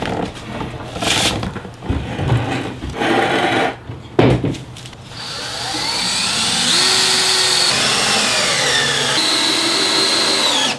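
Knocks and clatter of a wooden table frame being handled and turned over on sawhorses, then a cordless drill driving screws into 2x4 boards for about the last five seconds, its motor pitch rising and falling as the trigger is squeezed and eased.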